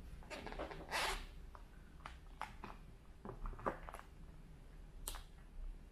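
Plastic lemper mould being handled and shifted on a silicone mat: a louder rustling scrape about a second in, then a few scattered light clicks and scrapes of plastic.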